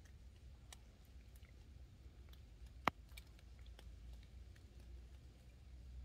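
Small woodland spring seeping from under an earth bank: faint, irregular drips and ticks of water, with one sharper click about three seconds in, over a low steady rumble.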